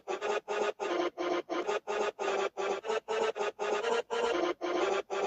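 A rapid run of short electric buzz and zap sound effects, each a fraction of a second long with a rasping, pitched hum, following one another about three or four times a second with brief gaps.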